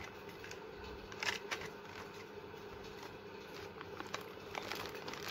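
Faint crinkling of a clear plastic bag and light clicks of plastic nail-kit items being handled, a few sharper clicks about a second in, over a low steady hum.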